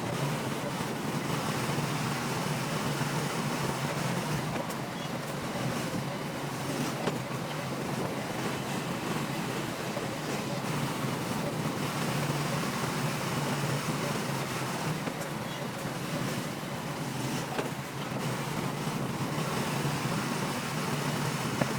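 Heavy earthmoving machine's diesel engine running steadily, mixed with wind noise on the microphone.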